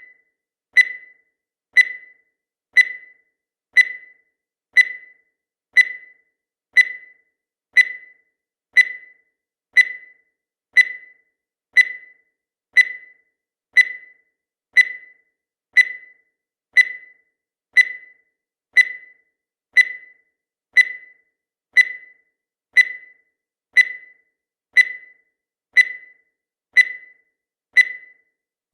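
Countdown timer sound effect: a short, high electronic beep once a second, each one dying away quickly.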